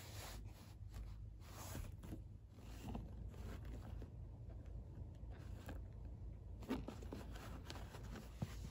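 Hands handling a cotton canvas tote bag: soft rustling and scraping of the canvas as an ID card on a lanyard is pulled from and pushed back into the front pocket, with a couple of sharper clicks later on.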